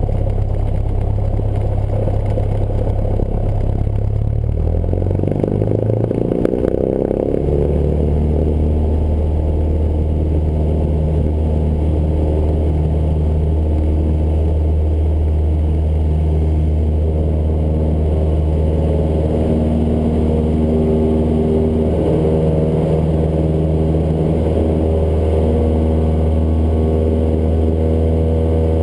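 Cessna 172's piston engine and propeller, heard from inside the cockpit. The pitch shifts as the throttle is opened about five to seven seconds in, then the engine holds a loud, steady full-power drone through the soft-field takeoff roll.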